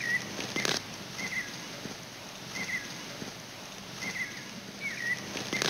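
A bird calling outdoors: a short, wavering high note repeated every second or so, with two sharp clicks, one just before a second in and one near the end.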